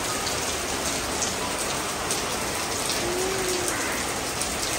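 Steady rain falling, an even hiss made of many small drop hits.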